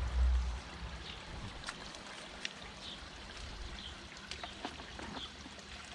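Water trickling and dripping in a garden pond, with scattered light clicks and splashes. There is a short low rumble on the microphone at the very start.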